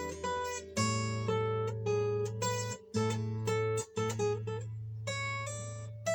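Yamaha steel-string acoustic guitar played solo in a loose improvisation: a new chord struck or picked about once a second, ringing over a sustained bass note, with two short breaks where the strings are damped between chords.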